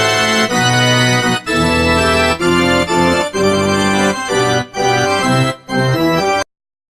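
Intro music: a loud electronic organ or keyboard playing a run of sustained chords that change about once a second, cutting off abruptly near the end.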